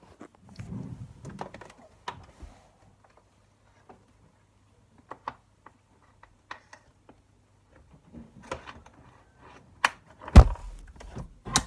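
Scattered light clicks, taps and rustles of a phone being handled close to clothing, with heavier thumps about ten seconds in and near the end.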